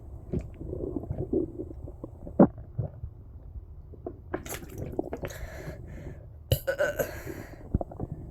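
Water being gulped from a bottle: short wet swallowing clicks, the sharpest about two and a half seconds in, then a few seconds of hissing, sloshing water noise.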